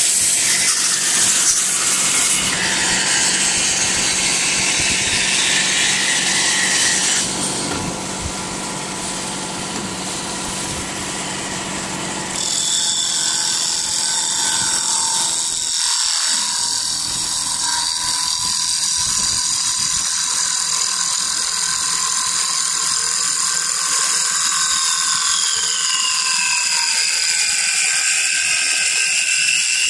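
Automatic CNC wood-turning lathe cutting a spinning wooden blank: a steady hiss of the tool shaving wood over the whine of the machine's motors. The hiss eases a few seconds in, and about halfway several high steady whine tones set in, which drop in pitch a few seconds before the end.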